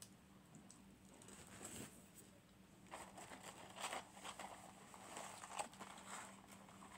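Faint eating sounds: chewing, and the soft crinkle and rustle of a paper French fry carton as fries are pulled from it, in irregular small bursts from about three seconds in.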